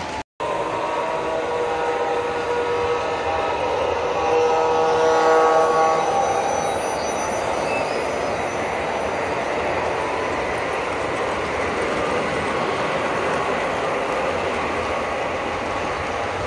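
Model freight train running past close by on the layout track: a steady rumble of wheels and motors on the rails. For the first several seconds a held tone of several pitches sounds over it, louder around four to six seconds in.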